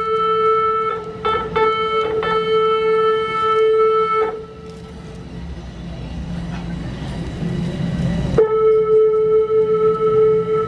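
Subway train horn from a TTC Toronto Rocket train entering the station: a steady single-pitched blast, broken by a few quick breaks, lasts about four seconds. The train's rumble follows as it rolls in, and a second long steady blast starts a little past eight seconds in.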